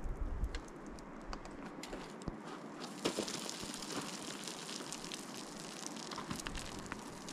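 Boots crunching on loose scree, with small stones clattering and trickling: a steady crackle of many small clicks, a little louder in the first second and again about three seconds in.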